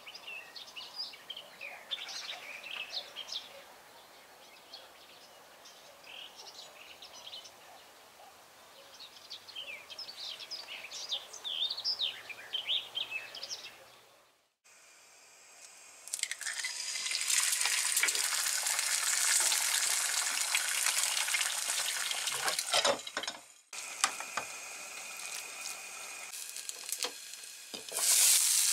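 Small birds chirping outdoors for about the first half; then eggs frying in a pan with a loud, steady sizzle, broken by a few clinks of the pan and its lid.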